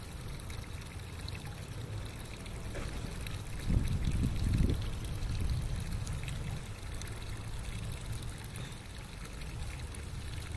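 Outdoor pond ambience: water trickling faintly over a low rumble of wind on the microphone, which swells in a gust for about a second near four seconds in.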